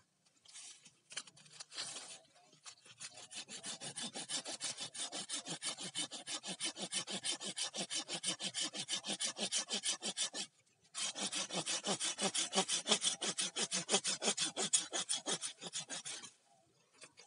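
Hand saw cutting through bamboo with quick, even back-and-forth rasping strokes. It pauses briefly a little past halfway, then saws on and stops about a second before the end.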